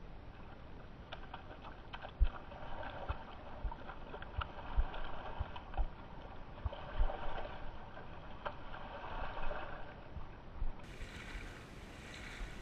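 A hooked trout splashing and thrashing at the surface of a shallow creek as it is reeled in, in irregular spells, with scattered low knocks.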